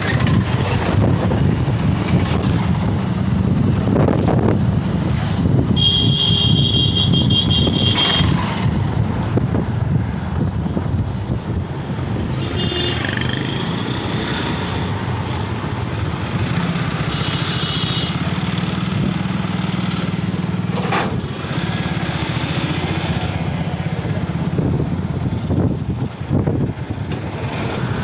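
Road traffic heard from a motorcycle in slow city traffic: a steady engine and traffic rumble. A shrill tone sounds for about two seconds some six seconds in, and shorter high tones come later.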